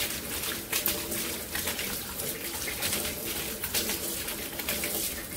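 Tap water running into a stainless steel sink while a corn cob is rubbed back and forth by hand under the stream, with irregular scrubbing sounds from the rubbing.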